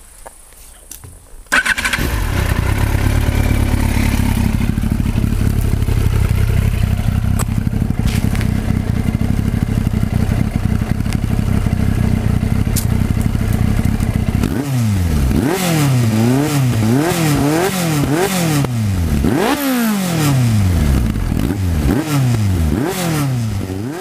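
Yamaha FZS 1000 Fazer's inline-four engine through a Mivv GP slip-on exhaust starting up about a second and a half in, then idling steadily. From about halfway through it is revved in a quick string of throttle blips, the pitch rising and falling each time.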